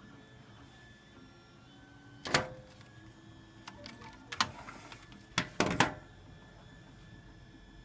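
Hard plastic toy-blaster parts knocking and clattering as the Nerf Vulcan tripod and blaster are handled on a tabletop: one sharp knock a couple of seconds in, then a few lighter taps, then a quick cluster of knocks and rattles.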